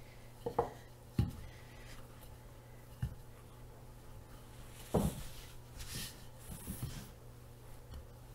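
Wooden rolling pin rolling out pie dough on a floured counter: soft rubbing with a few light knocks, the loudest about five seconds in. A low steady hum underneath.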